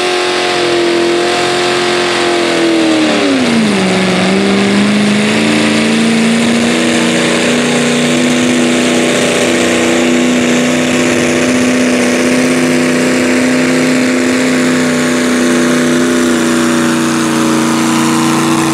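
Chevrolet S-10 pro stock mini pulling truck's engine running at full throttle through open zoomie exhaust stacks while dragging the weight-transfer sled. Its pitch falls about three seconds in, then holds steady under load.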